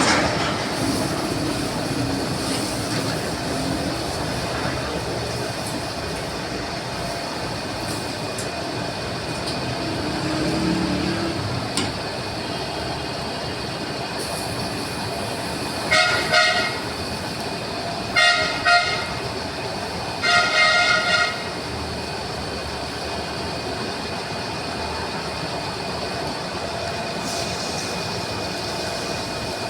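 Lathe running steadily through a flange cut, with a constant hum and whine. Three short, loud, shrill tones break in about two seconds apart near the middle.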